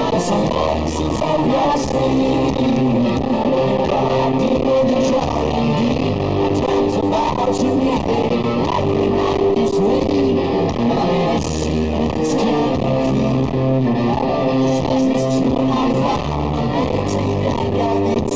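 Rock band playing live, heard from the crowd: a slow, heavy electric guitar and bass riff over drums and cymbals.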